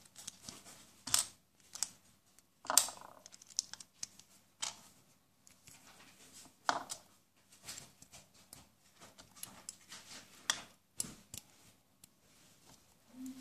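Plastic Lego bricks, plates and an axle being pressed together and handled: irregular sharp clicks and taps, a few of them louder snaps.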